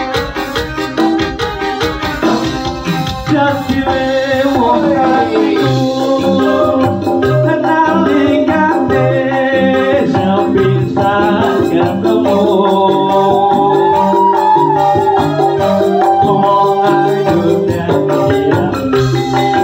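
Live band music: a bamboo flute and keyboard carry a gliding melody over a steady drum beat, with a man and a woman singing a duet into microphones. The band gets fuller and louder about three and a half seconds in.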